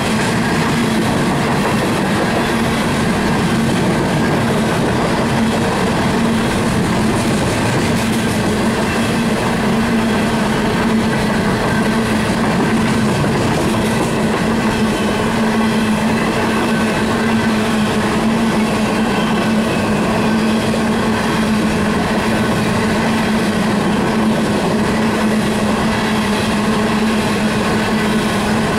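Coal cars of a CSX freight train rolling past on curved track: a steady rumble and rattle of steel wheels on the rails, with a steady low hum underneath.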